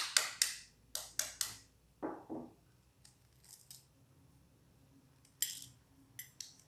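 A metal spoon tapping a raw eggshell several times in quick succession to crack it, sharp clicks in the first second and a half. Near the end, a few crackling snaps as the cracked shell is pulled apart.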